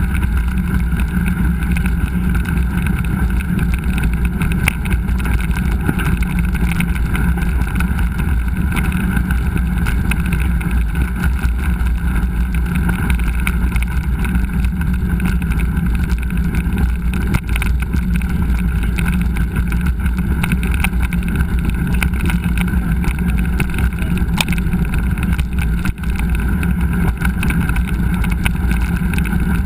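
Steady wind rumble on the microphone and the rolling noise of a mountain bike on a trail, with scattered small knocks and rattles.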